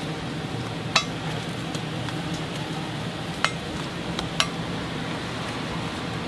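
A metal spoon clinking and scraping against a metal cup as egg-cake batter is scooped out, with three sharp clinks standing out from a few lighter ticks. A steady low hum runs underneath.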